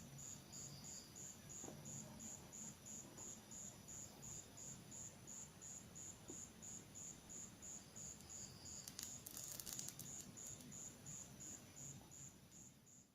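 Near silence with an insect chirping faintly and steadily, about two and a half chirps a second. There is a brief crackling rustle about nine seconds in.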